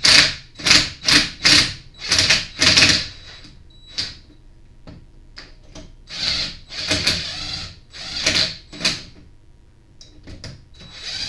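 Cordless drill/driver run in short trigger bursts, threading a flywheel puller's bolts into a small engine's flywheel: more than a dozen brief whirs with short pauses between, with a longer run of bursts about six to eight seconds in.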